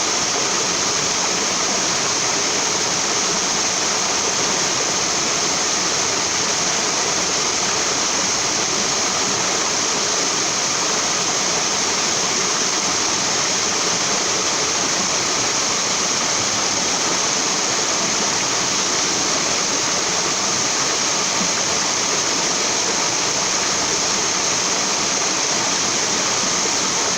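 Small waterfall spilling over a farm dam, a steady rushing and splashing of falling water with no change throughout.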